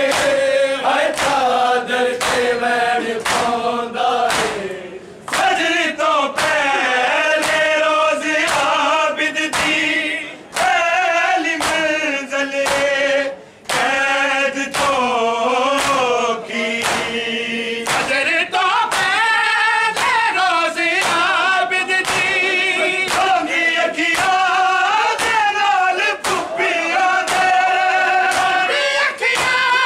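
Men singing a noha, a Shia mourning lament, in chorus, with the rhythmic slaps of many hands beating on bare chests in matam, about one and a half strikes a second. The singing breaks off briefly twice while the strikes keep time.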